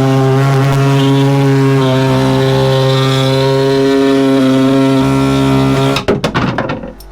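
Pneumatic air saw running steadily at full speed with a high buzz as it cuts an opening in a boat's fibreglass deck, then cutting out about six seconds in, followed by a few rattles and knocks.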